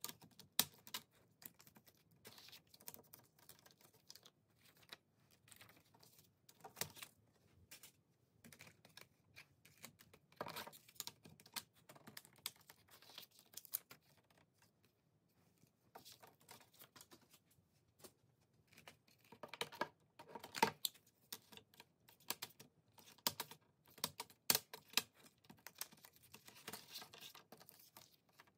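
Plastic CD jewel cases being handled: irregular sharp clicks and clacks as cases are opened and the disc and cards are taken out, with light paper rustling near the end.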